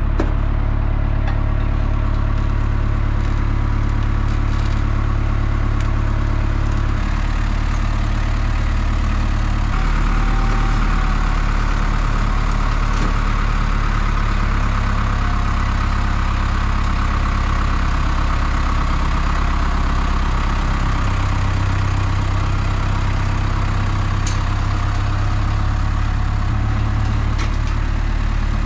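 Tractor diesel engine running steadily close by, its engine speed stepping up and down a few times as the front loader lifts a large tractor tyre off a trailer.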